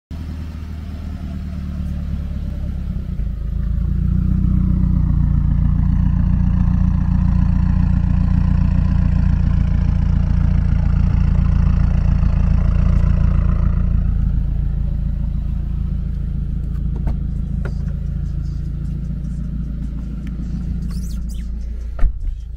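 Subaru WRX turbocharged flat-four with an aftermarket cat-back exhaust and downpipe running at a steady low speed. It swells for the first few seconds, holds, then gradually eases off. A few clicks and one sharp knock come near the end.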